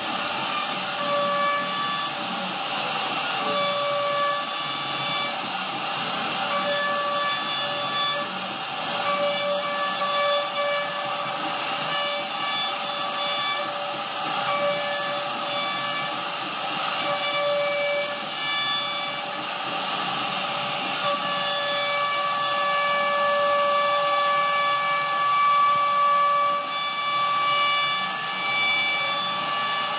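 CNC router spindle carving a relief pattern into a wooden panel: a steady high whine over the hiss of the bit cutting wood. The whine's tones fade in and out as the cut changes.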